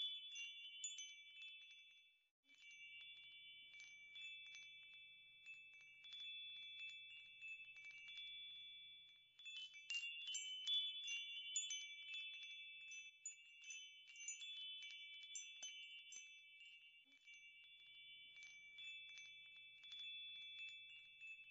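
Faint wind chimes ringing, many light strikes over several overlapping sustained tones, with a short break a little over two seconds in.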